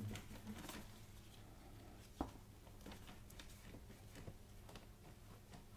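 Faint brush strokes of a paintbrush working acrylic paint on canvas, soft scattered ticks with one sharper tap about two seconds in, over a low steady hum.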